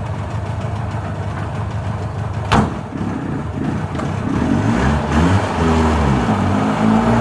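A vehicle engine running, then revving up and down from about five seconds in, with one sharp knock about two and a half seconds in.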